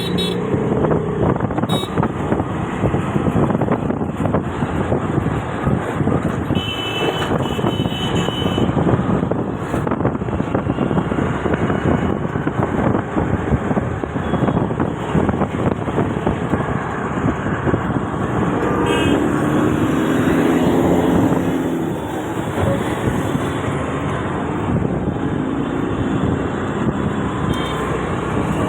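Steady rumble and rattle of a moving vehicle heard from on board, with a brief high squeal about seven seconds in.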